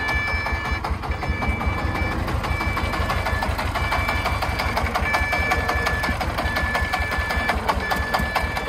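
Công nông three-wheeled farm truck's diesel engine chugging steadily under load, with a two-tone reversing alarm beeping over and over as the laden truck backs up.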